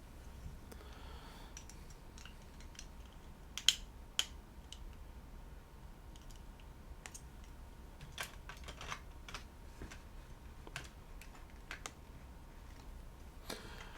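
Plastic Lego pieces clicking as they are handled and pressed together, in irregular small clicks, with a sharper click just under four seconds in.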